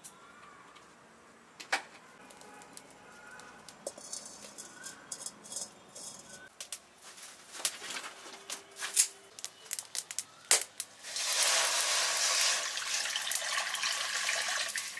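Scattered pops and crackles from a wood cooking fire, then, about eleven seconds in, a steady stream of water poured into an iron wok, a loud splashing rush lasting about four seconds.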